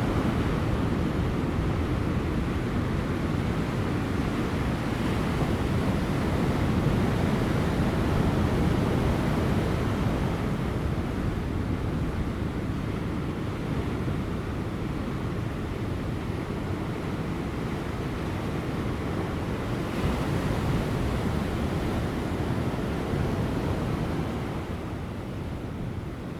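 Large ocean waves breaking on rocks just offshore, a continuous deep rush of surf that swells and eases. It is louder in the first third, surges briefly past the middle, and settles a little near the end.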